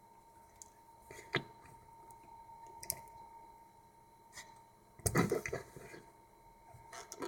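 Handling noises: scattered light knocks and rustles, with a louder burst of rustling about five seconds in.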